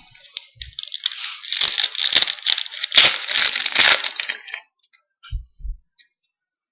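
Foil trading-card pack wrapper crinkling and tearing as the pack is opened, a dense crackle lasting about four seconds, then a few soft taps as the cards are handled.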